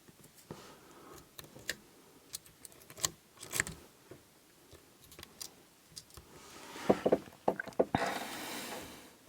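Lock pick and tension tool working the pins inside an Abus 72/40 padlock: scattered light metallic clicks and scrapes, with a quicker run of clicks and a longer scrape in the last few seconds.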